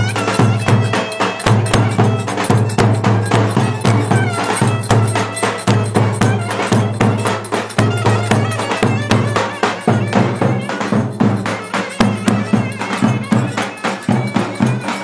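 Live Turkish folk wedding dance music: clarinet playing a wavering, ornamented melody over fast, steady percussion beats.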